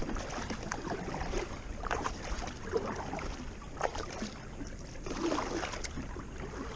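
Kayak paddle dipping and splashing in the water, a stroke roughly every second, with water noise.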